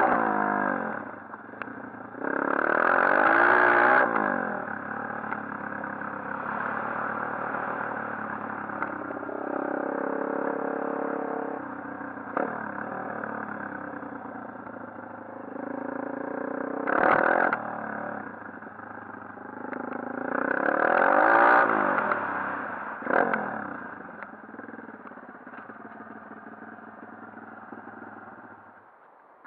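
Small 140cc pit bike engine running and being revved, its pitch rising and falling, with loud bursts of throttle a few seconds in, around the middle and again about two-thirds of the way through, then dropping away to a low drone near the end. A few sharp clatters can be heard along with it.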